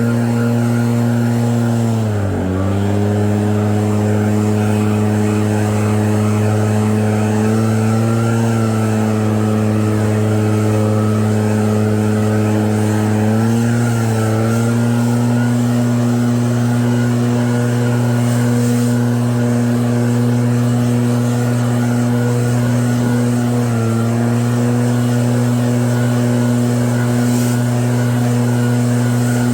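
EB7660RED snow blower's engine running steadily, its pitch dipping briefly and recovering about two seconds in, again around the middle and about three-quarters of the way through.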